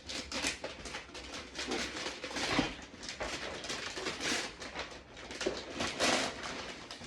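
Gift wrapping and packaging rustling and tearing in a string of irregular bursts as a present is unwrapped.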